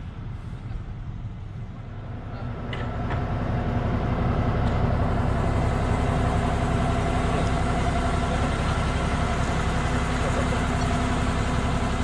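Diesel power unit of a Liebherr R 9350 hydraulic mining excavator running, a steady deep hum with a few held tones. It grows louder over the first few seconds, then stays even.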